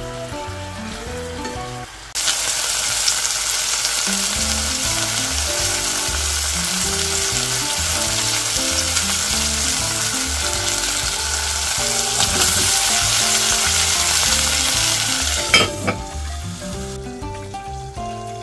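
Pork pieces sizzling loudly as they fry in hot oil in a stainless steel pot; the sizzle starts abruptly about two seconds in and dies away near the end. A brief clatter comes shortly before it stops, and light background music plays underneath.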